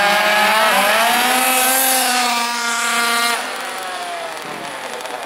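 Radio-controlled buggy's small engine revving up about a second in and held at high revs, with a buzzing, chainsaw-like tone. It falls off sharply after about three seconds and runs on quieter.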